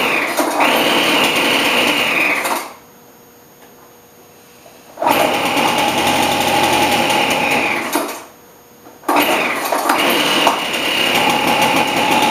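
Craftsman leaf blower's two-stroke engine firing on choke, running for a few seconds with a steady high whine and then dying, three times over. The engine is still too cold to keep running.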